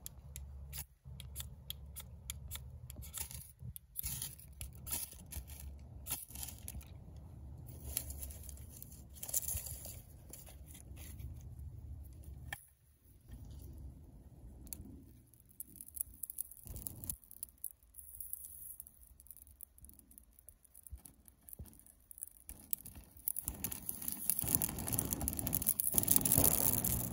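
A ferro rod is scraped with a knife in short rasping strokes, throwing sparks onto a tinder bundle with a cotton ball. Near the end, dry pine needles catch and burn with a loud crackle. Wind rumbles on the microphone in the first half.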